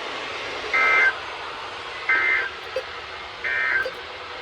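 Emergency Alert System end-of-message code: three short, identical bursts of warbling data tones about a second apart, marking the end of the warning, over steady broadcast hiss.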